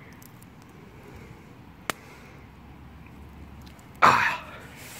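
Campfire coals with a single sharp crackle pop about two seconds in, followed near the end by a short, louder breathy exhale from a man.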